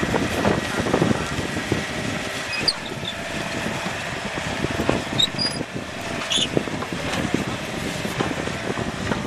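Yanmar mini excavator's diesel engine running steadily, mixed with wind blowing across the microphone, with a few faint high clicks.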